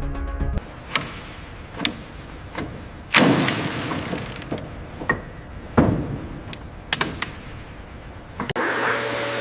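A string of sharp knocks and clanks, about ten in all, each ringing on briefly, the two loudest about three and six seconds in. Near the end a steady hissing, blower-like noise starts suddenly.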